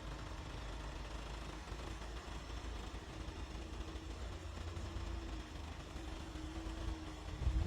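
A motor vehicle's engine running steadily with a low rumble and a faint steady hum, swelling briefly louder near the end.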